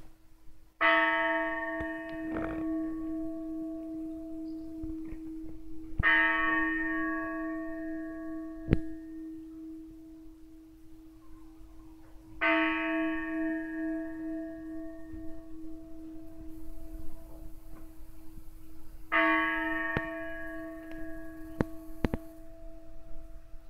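A large monastery church bell tolling slowly, struck four times about six seconds apart. Each stroke rings on with a deep hum that carries through to the next.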